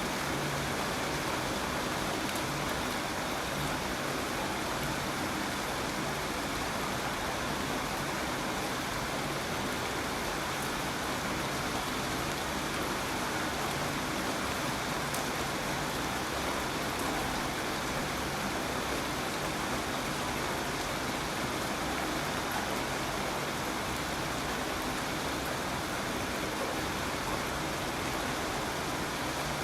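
Steady rainfall, an even hiss of many drops with faint scattered patters, unchanging in level.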